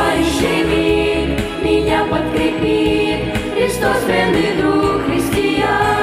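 A mixed youth vocal ensemble of boys and girls singing in harmony through handheld microphones, holding long notes over accompaniment with a steady low bass.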